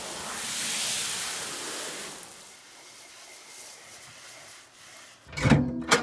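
Water spraying from a garden hose's pistol-grip spray nozzle into an empty plastic storage tub: a steady hiss that fades over the first few seconds. Two loud thumps near the end.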